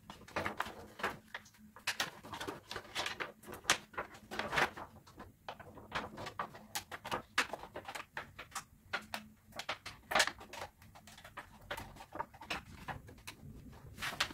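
Thin clear plastic sheet crackling and crinkling as it is handled and pressed onto the pins of a 3D-printed headband, with irregular small clicks throughout.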